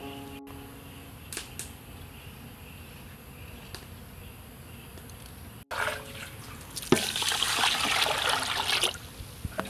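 Water poured from above into an aluminium pot of raw rice, splashing onto the grains to rinse them. The loud pour starts about two-thirds of the way in and lasts a couple of seconds.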